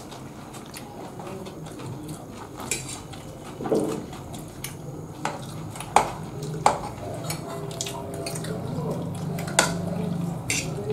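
A metal fork clinking and scraping against ceramic dinner plates, in scattered sharp clicks, over a steady low room hum.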